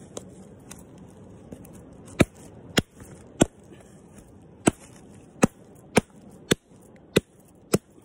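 A hand-held rock striking a sprouted coconut in its fibrous husk to crack it open. A few light taps come first, then about two seconds in nine sharp knocks, roughly two a second with a short pause in the middle.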